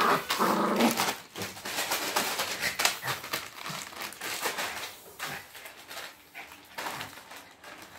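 Crinkly plastic snack packet rustling and crackling as a Pomeranian bites, shakes and drags it, trying to tear it open. The crinkling is densest in the first few seconds and thins out toward the end.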